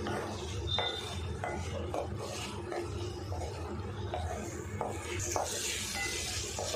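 A spoon stirring boiled eggs through thick masala in a metal pan, with short, irregular scrapes and taps against the pan.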